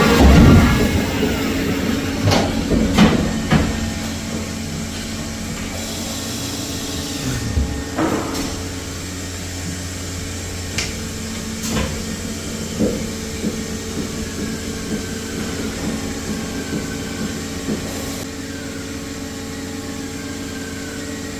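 CNC milling machine running as it cuts hardened steel, a steady spindle hum with several held tones. Sharp clicks and knocks break in now and then, most of them in the first half.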